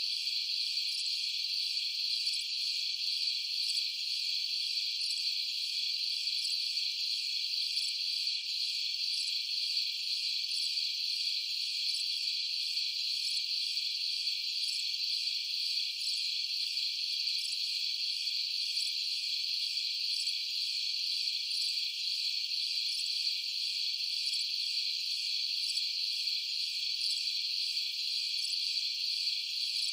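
A steady chorus of crickets and other night insects: a dense, unbroken high-pitched trilling, with a faster, evenly pulsing chirp layered above it. There are no low sounds.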